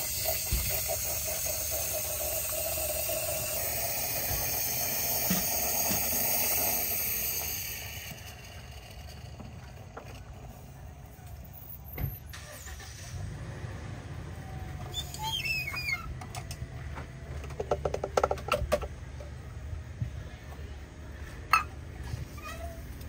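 Sparkling drink fizzing in a glass under a Cafelat Robot manual lever espresso maker, a steady hiss that dies away about eight seconds in. After that comes a low rumble with scattered metal clicks and clinks as the machine's levers are worked, and a sharp click near the end.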